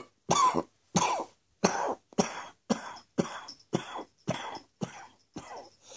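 A person's chesty cough from a lingering chest infection: a fit of about ten short coughs in quick succession, roughly two a second, growing fainter toward the end.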